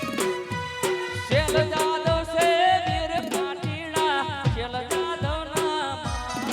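Gujarati folk raas music: a steady drum beat of about four strikes every three seconds, with a wavering, ornamented melody line coming in about a second and a half in.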